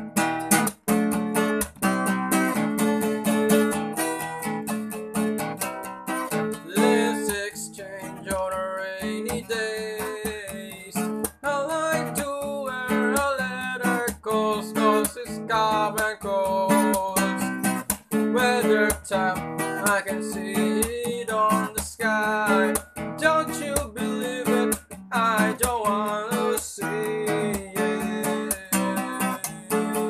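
Acoustic guitar strummed in a steady rhythm through an instrumental section of a song, with a melody line bending over the chords.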